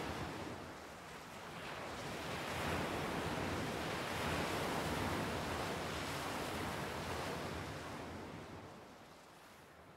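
Ocean surf: a wash of waves that swells after about a second, holds, and fades away near the end.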